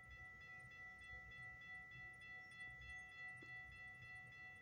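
Railroad grade-crossing warning bell ringing steadily, a ringing tone over a faint low rumble, while the crossing gates lift after the train has cleared.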